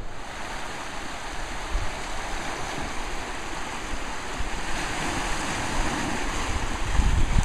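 Ocean surf rushing and hissing through a narrow rocky channel, swelling a little partway through. Wind buffets the microphone with a low rumble that grows heavier near the end.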